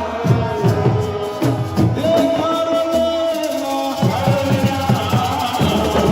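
Music with singing and drumming: held sung notes over a steady drum beat.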